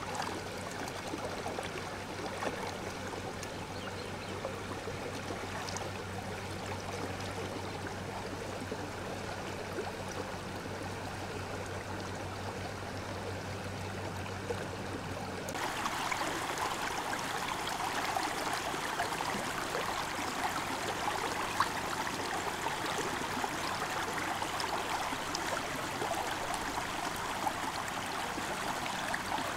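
Shallow river running steadily over stones, with water sloshing around hands rinsing in the current. About halfway through, the rush becomes closer and brighter.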